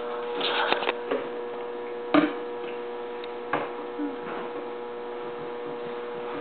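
A steady electrical hum with a few brief taps and knocks, from about half a second in, around two seconds in and again near three and a half seconds in, as a plastic jack-o'-lantern pail is handled on a plastic table.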